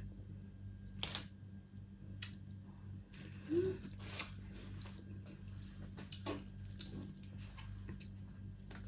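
Close-up eating sounds: scattered wet smacks and clicks of someone chewing seafood, over a steady low hum.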